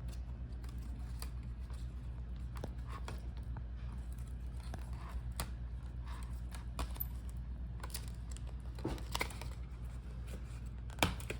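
Small clicks, taps and light scraping and crinkling as the laptop's hinge is unfolded and the motherboard is handled and lifted out, over a steady low hum.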